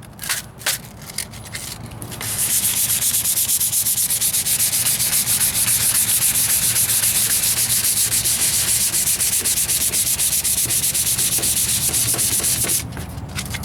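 Fine-grit sandpaper rubbed by hand over filler primer on a truck's wheel arch: a few short strokes, then about two seconds in a long run of quick, even back-and-forth strokes that stops shortly before the end.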